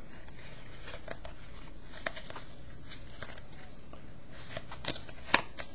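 Trading cards being handled and slid past one another: scattered soft clicks and light rustles over a low steady background hum, with a sharper click about five seconds in.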